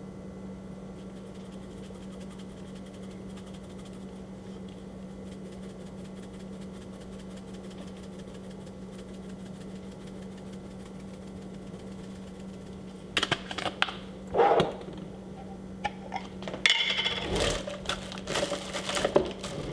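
A steady low hum, then about two-thirds of the way in a run of sharp clinks, taps and rattles as kitchen containers and utensils are handled while the ground beef is seasoned.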